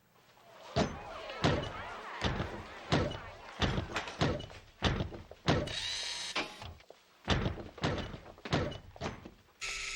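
Heavy, evenly paced clomping footsteps of a robot-suited figure walking, about one thud every three-quarters of a second. A brief high mechanical whir comes near the middle.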